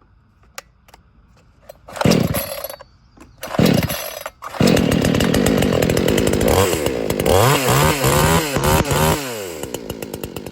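Dereal 62cc two-stroke gasoline chainsaw being pull-started: two short bursts, then it catches about four and a half seconds in. It is revved up and down a few times and drops to a pulsing idle near the end.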